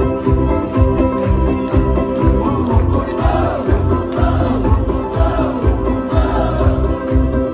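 Live music with a steady pulsing bass beat under held notes and a wavering, gliding melody line.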